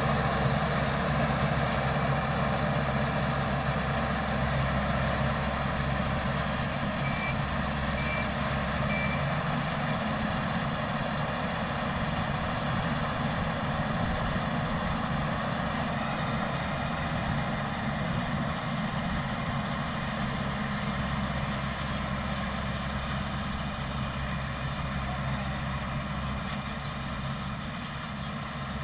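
Combine harvester running steadily in a paddy field, its engine note low with a broad mechanical hiss over it, growing a little quieter near the end. Three short high beeps sound about seven seconds in.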